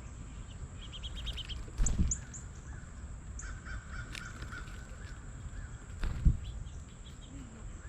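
Several small wild birds calling and chirping, with short repeated call notes, a quick high trill and a few high whistled notes. Two low thumps, one about two seconds in and one near six seconds, are the loudest sounds.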